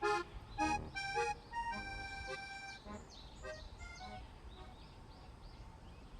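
Background music: a few bright accordion-like notes in the first three seconds, then fading. Faint high chirps follow in the middle.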